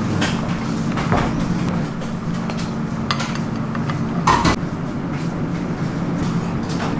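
A few short clinks and knocks from a stainless steel tray and serving plate being handled, the loudest about four seconds in, over a steady low machine hum.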